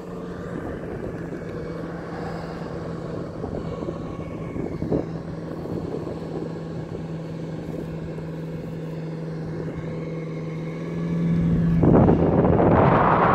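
Steady engine drone of the parasail tow boat far below, heard from aloft with wind on the microphone; near the end the wind rush grows much louder.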